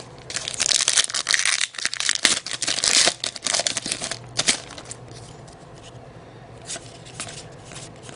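A trading-card pack's wrapper being torn open and crinkled for about four seconds, then a few light clicks as the pack is handled.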